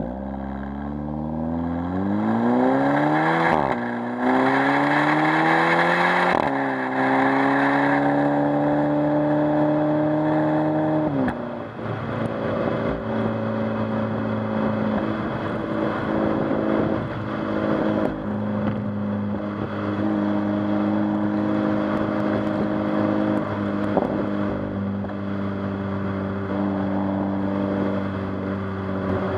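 Exhaust note of a 2007 Volkswagen GTI's turbocharged 2.0T FSI four-cylinder through a Billy Boat Stealth 3-inch turbo-back exhaust, heard at the tailpipes under moderately hard acceleration. The revs climb and fall away at three quick DSG upshifts, about four, six and a half and eleven seconds in, then the engine holds a steady note at even speed in fourth.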